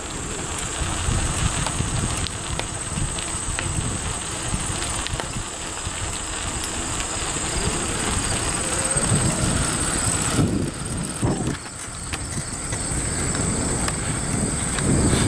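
Wind buffeting the microphone of a moving bicycle, with a steady high insect drone from the fields beside the trail.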